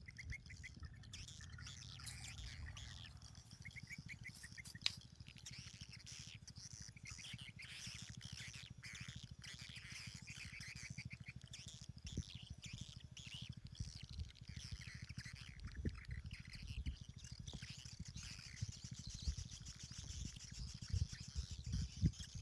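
Small birds chirping, with short quick trills repeated throughout, over a steady low rumble.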